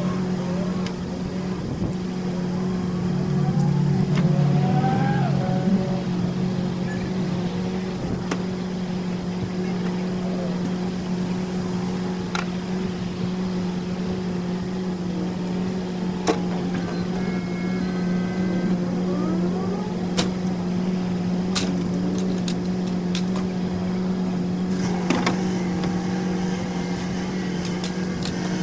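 Tow truck's engine idling steadily, with a few sharp metal clanks and clicks as the wheel-lift is unhooked and the car is set down.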